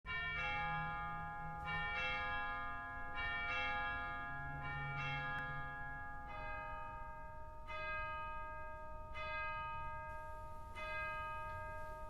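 Church bells ringing: a series of strokes about every second and a half, each one ringing on into the next.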